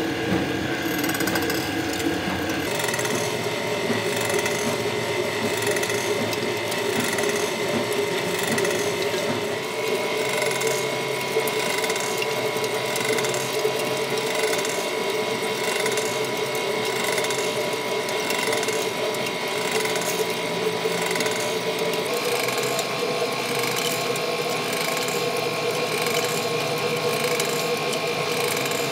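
Large metal-turning lathe running, its gears whining steadily over a constant mechanical clatter. The whine steps to a slightly different pitch a few times.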